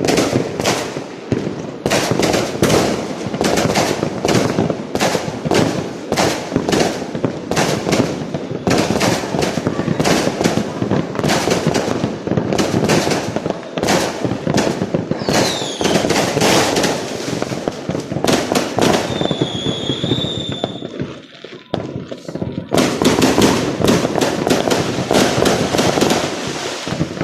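Fireworks and firecrackers going off in a dense, rapid barrage of sharp bangs and crackles. A brief whistle sounds past the middle, followed by a short lull before the rapid bangs resume.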